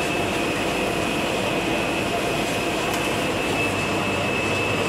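Steady rushing, bubbling water from aerated live-fish tanks, with a thin steady high whine over it.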